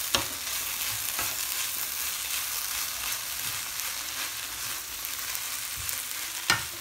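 Vegetable filling sizzling in a hot pan while it is stirred and turned with a metal fork, a steady frying hiss. A few sharp clicks of the fork on the pan, the loudest near the end.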